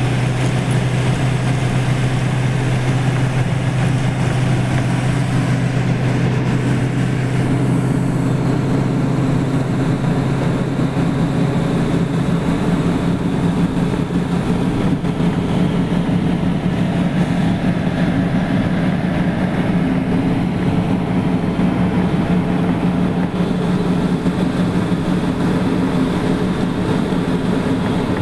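Car driving at speed, heard from inside the cabin: a steady mix of engine hum and road and tyre noise, the low engine note rising in pitch about twelve seconds in.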